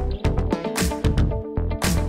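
Background music with a steady beat: drum hits over sustained instrumental notes.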